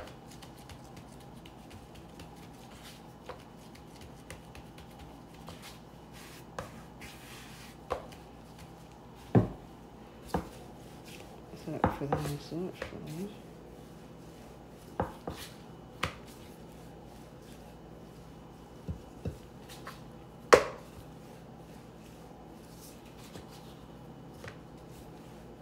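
Wooden rolling pin knocking against a bamboo cutting board as dough is rolled out by hand, with a scattering of sharp knocks, a few close together about twelve seconds in and the loudest single knock near twenty seconds, and quiet handling of the dough between them.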